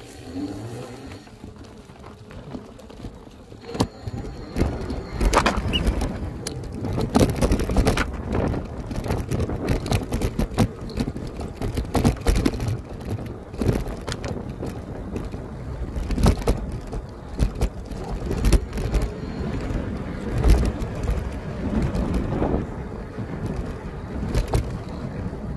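Wind buffeting the microphone, with irregular knocks and rattles from an electric bike jolting over rough off-road ground, getting louder about four seconds in.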